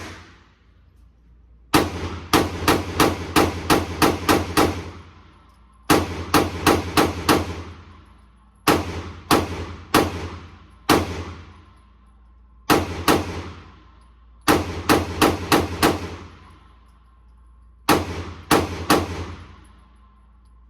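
Pistol fire at an indoor firing range: about seven strings of rapid shots, several shots a second, with short pauses between the strings and a brief echo after each shot.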